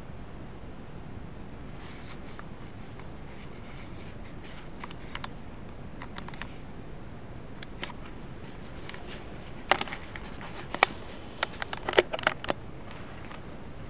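Steady hiss with scattered faint clicks and taps, then a quick run of sharp clicks and knocks from about ten to twelve and a half seconds in: handling noise from a hand-held camera being moved about.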